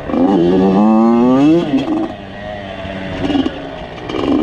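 Two-stroke off-road engine revving: the pitch climbs for about a second and a half, drops off, runs lower for a couple of seconds, then climbs again near the end.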